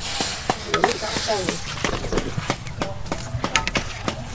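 Scattered sharp clicks and knocks from cooking utensils, with indistinct voices in the background.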